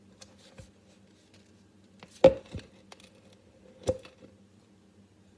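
A few sharp knocks and taps of containers and utensils being handled while scooping sticky marshmallow fluff, the loudest about two seconds in and another near four seconds, with faint clicks between.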